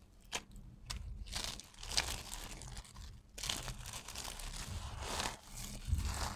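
Dry, cut soap stripes and chips crushed and crumbled by hand, crisp crunching and crackling. A few scattered crackles at first, then dense crunching from about a second and a half in.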